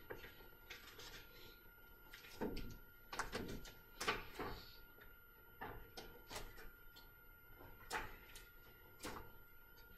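Faint, scattered small knocks, clicks and rustles from a quiet classroom as students work a problem at their desks, over a faint steady electrical whine.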